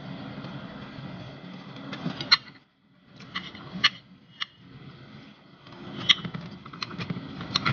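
Spoon and fork clinking against a plate now and then while eating: a handful of sharp, separate clicks over a low steady background hum. The sound briefly cuts out about two and a half seconds in.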